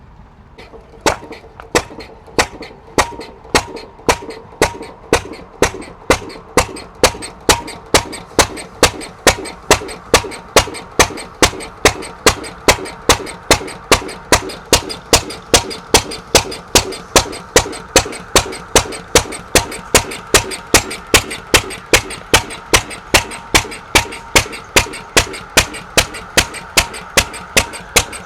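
Antique sawmill engine catching about a second in and then running, each power stroke a sharp, loud exhaust bang, coming a little faster at first and then settling into an even beat of about two a second.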